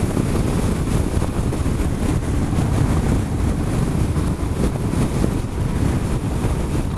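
Heavy, steady wind noise on the camera microphone of a moving motorcycle, with the Harley-Davidson Dyna's V-twin engine running underneath.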